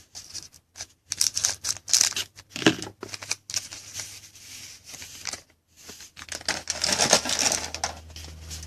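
A trading-card pack wrapper being torn open and crinkled in quick, crackly bouts: one about a second and a half in, and a denser, louder one near the end.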